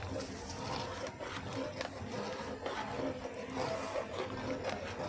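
Long-handled spoon stirring broken wheat into thick boiled lentils in a large metal pot, with soft, irregular scraping and small clicks against the pot.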